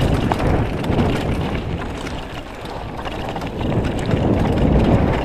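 Mountain bike descending a dirt and gravel trail at speed: wind rushing over the GoPro's microphone together with the rumble of tyres on the dirt. It eases a little in the middle, then grows louder again toward the end.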